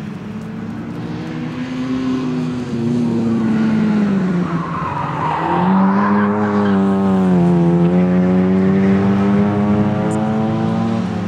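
Fiat Cinquecento rally car's small engine revving hard as it is driven flat out, the pitch dipping about four seconds in and then climbing and holding high. Tyres squeal through the corner around the middle.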